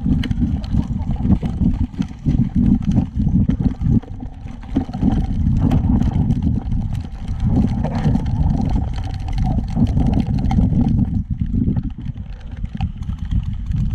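Wind buffeting and rumbling on a body-worn GoPro's microphone as the wearer moves, with scattered thumps and knocks of footsteps and gear.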